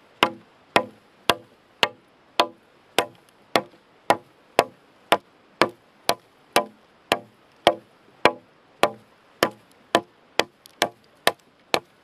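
Aitor Oso Blanco sawback knife chopping into the end of a fallen branch of hard, firm, sound wood: sharp blade strikes at a steady pace of about two a second.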